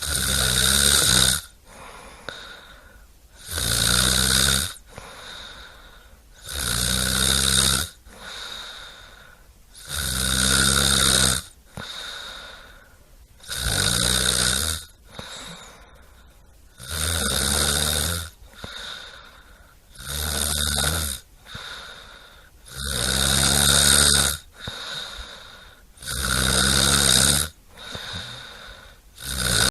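Loud, regular snoring: a rattling snore about every three seconds, each lasting about a second, with quieter breathing between.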